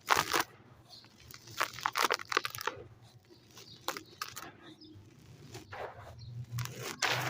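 Dry, compacted white sand breaking up, with irregular gritty crunches and crackles coming in clusters between short pauses.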